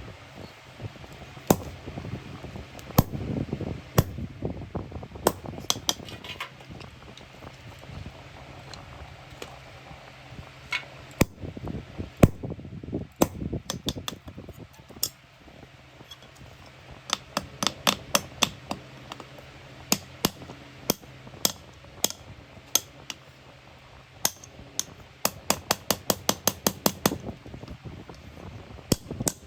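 Metal being struck with a small hammer: irregular sharp taps that become fast runs of about four or five taps a second, over a steady low hum.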